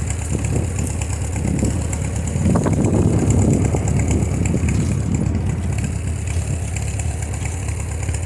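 A vehicle engine running steadily at low revs, a little louder for a second or so in the middle, as it is used to drag fallen pine trees.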